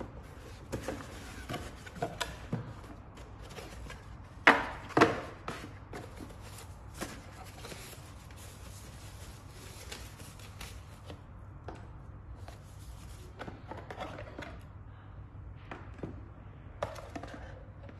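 Cardboard box being opened and unpacked by hand: flaps and lid knocking, and foam packing sheets rustling. Two loud knocks about half a second apart come roughly a quarter of the way in.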